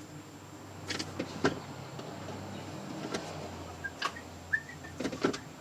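Scattered clicks and knocks of metal parts and hardware being handled and fitted inside a car door as the door latch assembly is installed, about six sharp separate strikes over a faint low hum.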